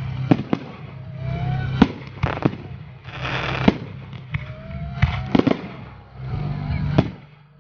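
Fireworks display: about ten sharp bangs of bursting shells in quick succession, with a few short rising whistles and a burst of crackling hiss around the middle.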